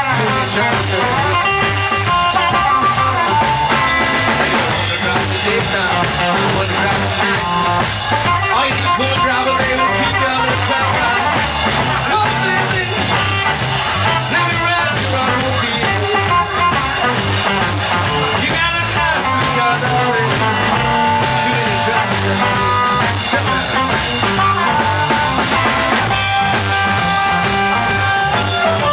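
Live electric blues band playing a 1950s-style blues number: electric guitar and drum kit under a man singing into the microphone. Near the end he switches to a blues harmonica played through the mic.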